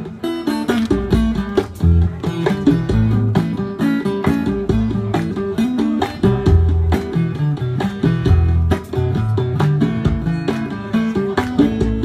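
Live acoustic music: a plucked guitar with a hand drum played by hand, the drum keeping the beat with low strokes and sharper slaps.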